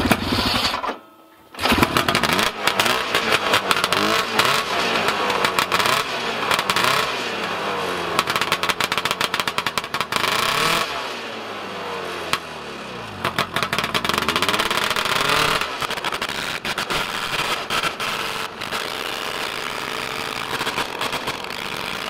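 Vintage snowmobile's two-stroke engine, just after its fuel pump membrane and gasket were refitted in the right order: it fires briefly, dies about a second in, then catches and runs, revved up and down over and over with the throttle, and is shut off abruptly at the end.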